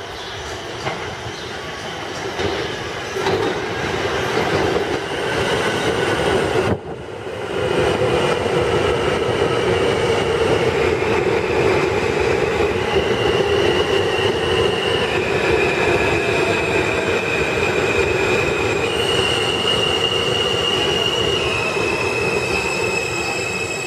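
R160B subway train pulling into a station: wheels rumbling on the rails, with high steady whines that jump up and down in pitch several times as the cars roll past and slow. The sound cuts out briefly about seven seconds in.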